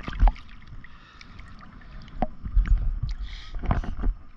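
Sea water lapping and splashing close around a camera held at the surface, with irregular knocks and low bumps against it: a sharp one just after the start and several more in the second half.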